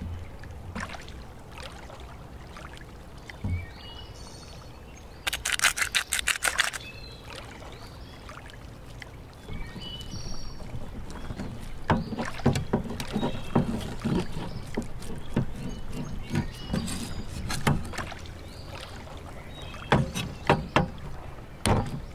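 A cleaver chopping bacon on a wooden cutting board in a quick run of about a dozen taps, then hands pressing and slapping minced meat into a patty around a stone, with soft knocks on the board. Birds chirp now and then.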